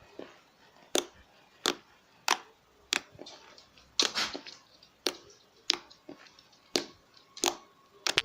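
Homemade slime being squeezed and poked by hand, giving sharp wet pops and clicks about once or twice a second, with a longer crackling squish about four seconds in.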